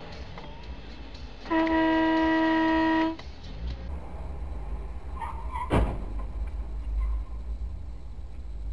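A car horn held on one steady note for about a second and a half, over low road rumble. A few seconds later there is a single sharp bang.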